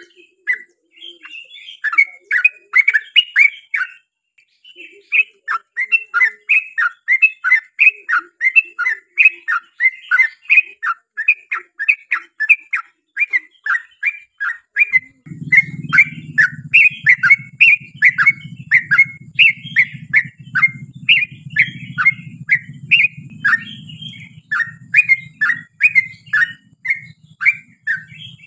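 Yellow-vented bulbul (trucukan) singing a long, fast run of short bubbly chirps, about three or four notes a second, with a brief pause early on. About halfway through, a low steady hum comes in under the song.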